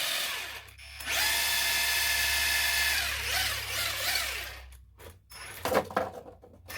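The electric motor and geared drivetrain of a 1/12 scale four-wheel-drive RC monster truck whine as the wheels are driven under radio throttle. The whine cuts out briefly, spins up again, wavers in pitch as the throttle changes, then dies away. A few light clicks and knocks follow near the end.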